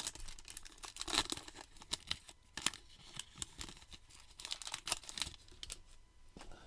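A plastic-foil baseball card pack wrapper being torn open and crinkled by hand, in a run of irregular crackles.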